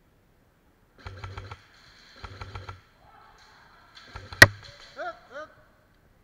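Airsoft electric rifle (AEG) firing three short bursts, each a rapid string of clicks over a motor hum. A single loud sharp crack during the third burst is the loudest sound, and two short pitched sounds that bend up and down follow near the end.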